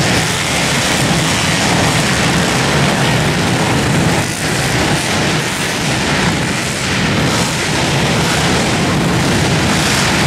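Several pit bike engines running hard and revving in a race, a dense, continuous racket.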